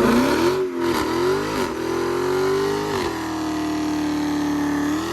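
Dodge Hellcat Redeye's supercharged V8 revving and accelerating. Its pitch climbs and drops about three times in the first three seconds, holds steady for about two seconds, then starts climbing again near the end.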